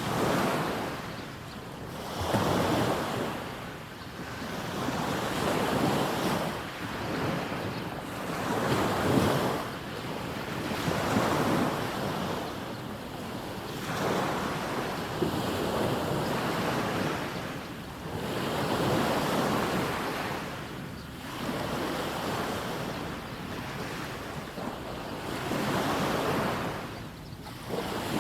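Small sea waves breaking and washing up a sandy beach, one surge swelling and falling back every two to three seconds.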